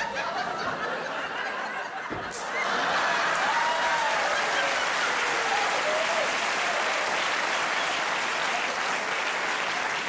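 Theatre audience applauding, with some laughter. There is a single thump about two seconds in, after which the applause swells and holds steady.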